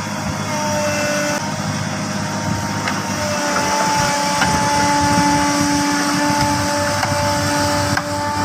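Excavator's diesel engine running steadily with a continuous whine over its rumble and a few faint knocks.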